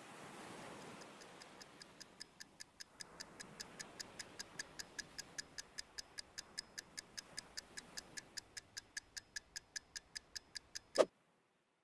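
Wind-up alarm clock ticking steadily, about five ticks a second, fading in over the first few seconds. It ends near the end with one sharp, loud click, after which the sound cuts to dead silence.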